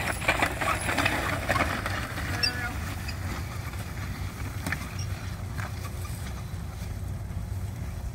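Horse-drawn walking plow cutting through grassy sod, with roots tearing and crackling as the share turns the furrow. The crackling is densest in the first couple of seconds and thins out as the team pulls away, over a steady low rumble.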